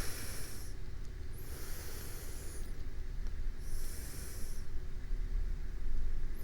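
Slow breathing of a sleeping person close to a binaural microphone: soft, airy breaths, one fading out about half a second in, another about a second and a half in, and another around four seconds in. A low rumble swells near the end.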